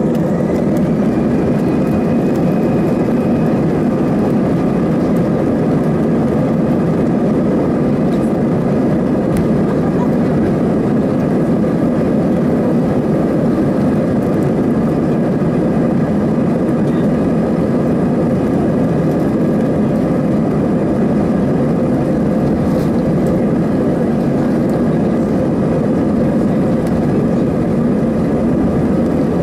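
Airbus A320's CFM56 turbofan engines at low taxi thrust, heard inside the cabin near the wing: a steady rumble with a high engine whine on top, which rises slightly about a second in and then holds.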